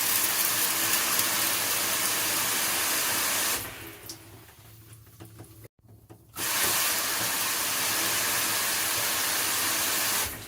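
Handheld shower head spraying water in a steady hiss, shut off about three and a half seconds in, then turned back on about two and a half seconds later and running until just before the end. The first burst is its atomized fine-mist setting.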